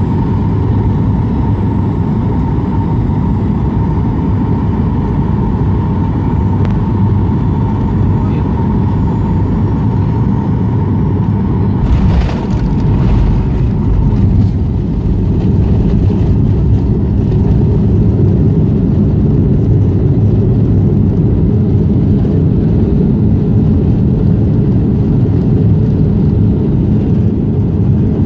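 Boeing 737 landing, heard inside the cabin: steady engine and airflow noise, with a faint whine early on. The main wheels touch down about twelve seconds in with a jolt and rumble. The noise then grows louder as the jet rolls out on the runway.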